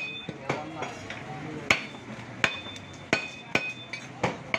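A butcher's large cleaver striking beef on a wooden stump chopping block: about seven sharp, irregularly spaced chops, several with a brief metallic ring from the blade.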